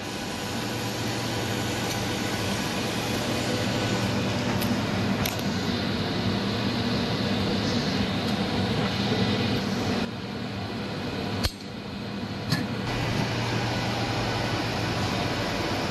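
Steady hum of a jewelry laser spot welder's cooling fan running, with a few isolated sharp clicks.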